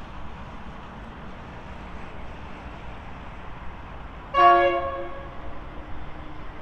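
Diesel locomotive horn sounding one short blast about four seconds in, with several tones together, over a steady low rumble.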